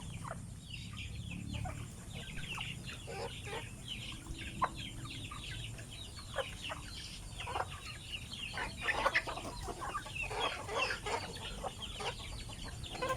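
A flock of chickens calling: many short, overlapping clucks and chirps, several a second, over a low steady rumble.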